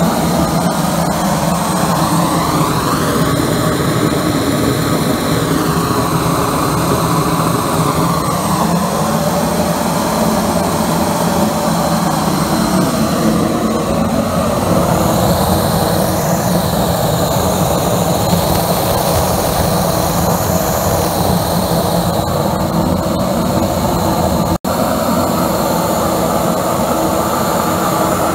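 Homemade diesel-fired cyclone burner running steadily, driven by a small air compressor whose running noise mixes in. There is a split-second break near the end.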